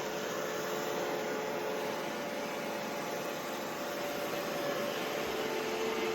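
iRobot Roomba i3+ robot vacuum running: a steady whir from its motor and brushes, with a faint hum that holds its pitch.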